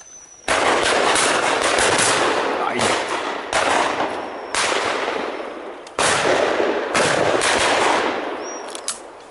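Shotgun fire at driven pheasants: a string of loud bangs in quick succession, the biggest about half a second in, then near three and a half, six and seven seconds, with fainter shots between. Each bang tails off slowly.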